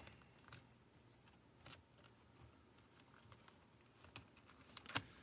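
Faint, scattered small clicks of fingers and a tool working the battery connector inside an open Chromebook, ending in a sharper click about five seconds in as the connector comes loose.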